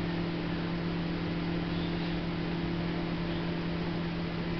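Microwave oven running: a steady low hum over an even hiss.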